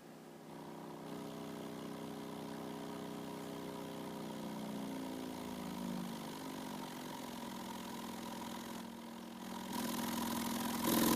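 Small pump motor running with a steady hum; its pitch sags a little about halfway through, and it gets louder near the end.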